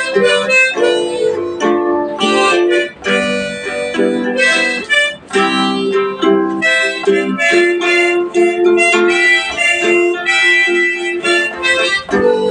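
Instrumental music: a harmonica playing a melody of held notes over guitar accompaniment.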